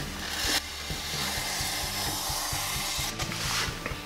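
Knife blade scoring and cutting through XPS foam board, a steady scratchy hiss, over background music with a steady beat.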